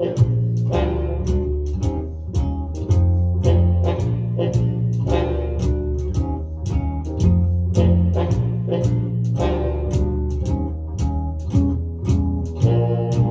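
Big band swing music playing through a hi-fi system's loudspeakers. It has a steady beat of strokes about twice a second over a walking bass line.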